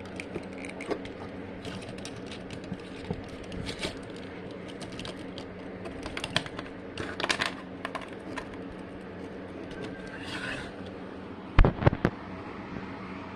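Plastic Transformers action figure being handled: scattered small clicks and rattles of its parts, with a couple of louder knocks near the end, over a steady low hum.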